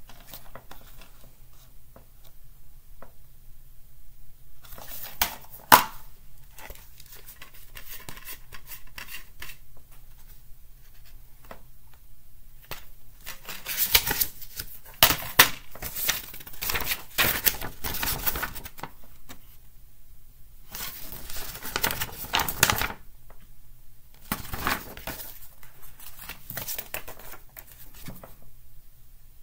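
Plastic wrapping being torn and crinkled off a DVD case while the case is handled, in several spells of crackling with a sharp click about six seconds in.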